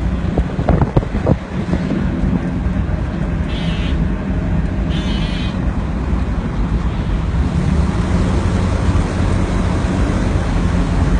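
Steady low drone of an amphibious duck boat under way, with wind buffeting the microphone. A short cluster of sharper sounds breaks in about a second in.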